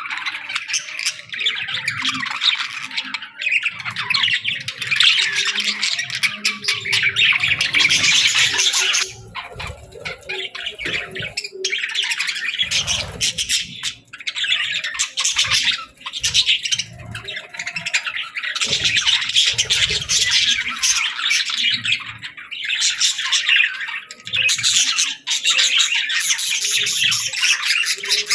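Many birds chirping at once in a dense, continuous chatter, easing off briefly a few times.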